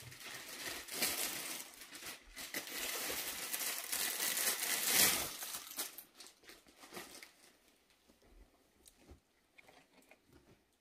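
Crinkling and rustling of folded cloth suits and their clear plastic wrapping as they are handled. It is loudest for the first six seconds, then only a few soft rustles.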